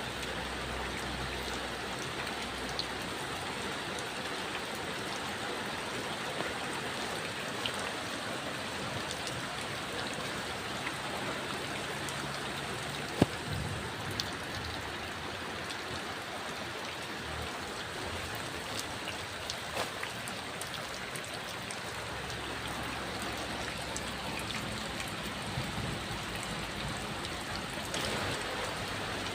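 Heavy rain falling steadily, with scattered louder drops tapping and one sharper tap about halfway through.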